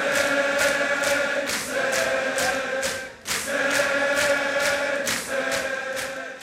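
Large crowd of men chanting a mourning lament in unison, with rhythmic chest-beating slaps about three a second (sineh-zani). The chant breaks off briefly about three seconds in, then resumes.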